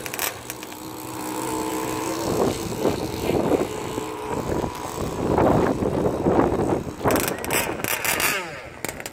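Radio-controlled racing powerboats running flat out across the water, their engines giving a high whine that rises and falls in pitch as the boats pass.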